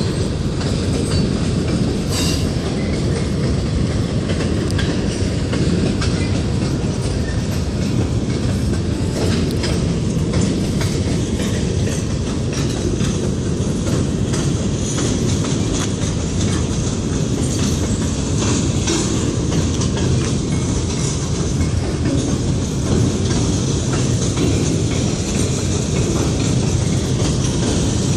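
A Kansas City Southern de México freight train's open-top gondola cars rolling past in a steady, loud rumble, with scattered clicks as the wheels cross rail joints.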